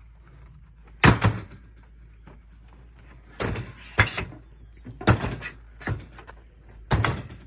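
A series of sharp bangs and thuds, about six over several seconds, from chicken coop panels being knocked and handled as the coop is taken apart.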